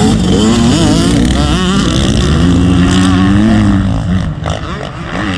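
Motocross bike engines revving up and down as several dirt bikes ride the track, the pitch rising and falling with each throttle change.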